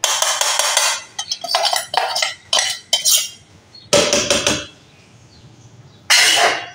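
Stainless-steel mixer-grinder jar knocked against a cooking pan and scraped out with a spoon to empty the ground semolina mix into the milk: a run of metal clattering and scraping, then two louder knocks about four and six seconds in.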